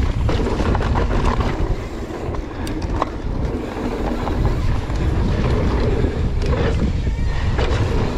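Mountain bike riding downhill over rough dirt: wind rushing over the microphone with the rumble of the tyres, and scattered sharp clicks and knocks from the bike over bumps.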